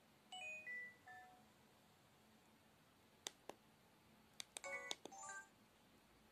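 Samsung SGH-E250 mobile phone playing short synthesized jingles from its built-in MMS templates through its small speaker: a brief run of falling notes just after the start, two sharp clicks around three seconds in, then a quick cluster of clicks and bright tones about a second later.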